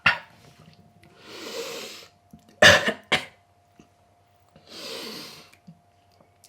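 A man coughing and breathing out hard from the burn of a shot of whiskey: a sharp cough about two and a half seconds in, with long rasping exhales before and after it.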